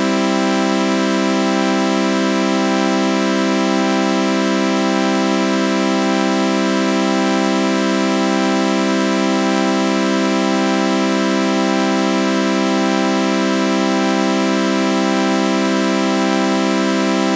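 A synthesized sawtooth-wave chord with a flanger effect, held as one steady, unchanging drone with a slow, regular wobble.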